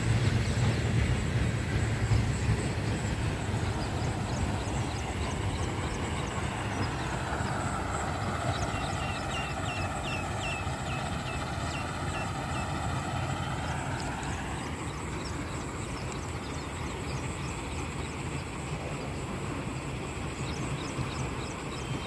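Train rumbling steadily, slowly fading as it moves away, with faint rapid ticking in the middle.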